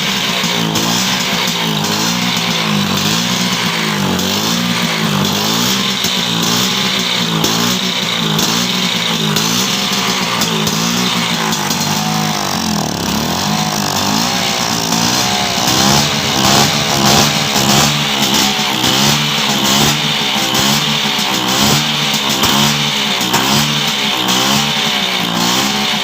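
Vespa PX 150's single-cylinder two-stroke engine running on test after years laid up, its pitch rising and falling again and again as the throttle is worked. It gets a little louder about two-thirds of the way through.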